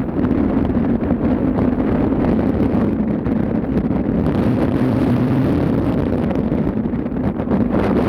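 Steady drone of a ship under way, with wind buffeting the microphone.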